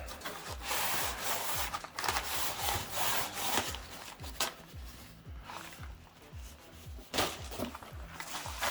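Rubbing and scraping of tripod packaging and parts being handled during unboxing, in irregular strokes, heaviest in the first few seconds and again near the end.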